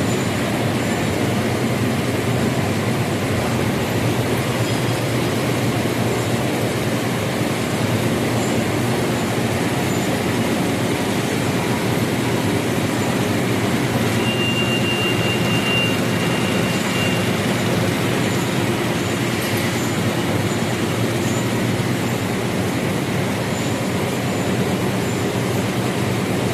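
Central-impression flexographic printing press running at production speed, about 200 metres of paper web a minute: a loud, steady mechanical din of rollers and drives with a low hum. A faint high whistle sounds for a few seconds around the middle.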